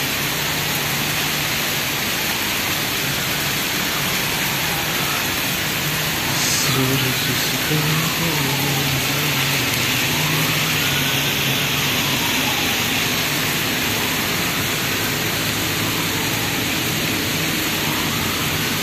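Steady rain falling on paving and garden foliage, an even hiss. A faint low hum comes and goes in the middle.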